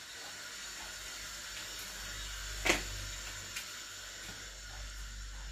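Steady hiss of running water, with one sharp knock about two and a half seconds in and a lighter tick a second later.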